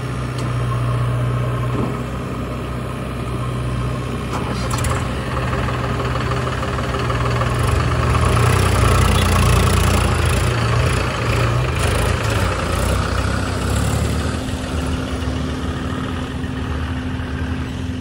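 Diesel engines of a Swaraj 742 XT tractor and a JCB 3DX backhoe loader running steadily, the tractor's engine working harder and getting louder about halfway through as it pulls a trolley loaded with mud.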